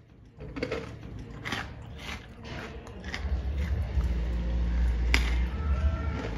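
Someone biting and chewing crisp fried murukku (rice and urad dal spiral snack), giving irregular crackling crunches. A low rumble comes in about three seconds in and carries on through the rest.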